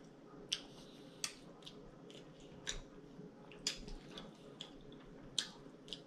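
Faint sounds of a person eating: chewing and mouth clicks, with a metal fork picking food off a plate. There are about ten short, sharp clicks, spaced unevenly.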